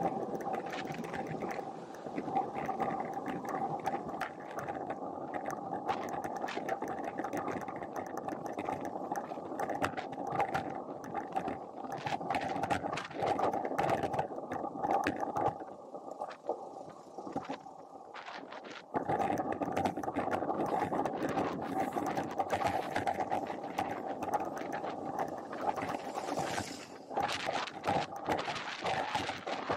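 Wind rushing over an action camera's microphone while riding a road bike, with tyre noise and scattered clicks and rattles from the road surface. It eases off for a few seconds past the middle, then picks up again.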